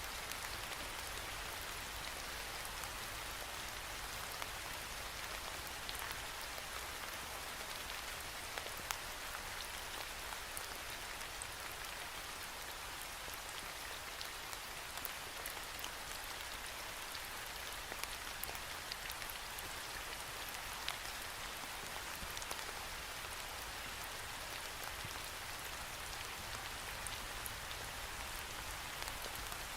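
Steady rain falling against a window pane, a constant hiss with many small drop ticks scattered through it.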